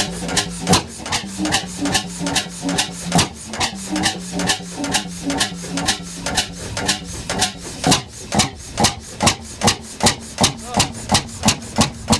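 1910 Cooper-Bessemer single-cylinder two-stroke 35 HP engine running, its exhaust beating in an even rhythm about two and a half times a second; the beats grow stronger and more regular about eight seconds in.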